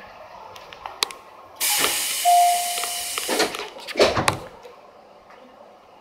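Compressed air hissing for about two seconds as the train's doors open, with a short single beep partway through, then a heavy thud about four seconds in as a door comes to its stop.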